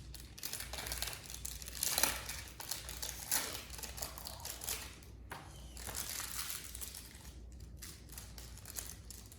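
Bakugan card-pack packaging crinkling and trading cards being handled, in irregular rustles with a couple of louder crinkles in the first few seconds.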